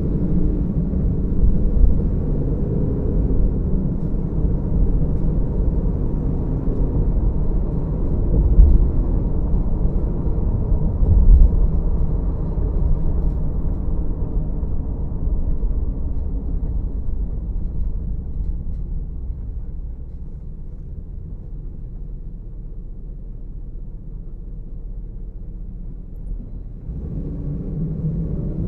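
Road and engine rumble of a car driving, a steady low noise. It gets quieter for several seconds past the middle, then picks up again near the end.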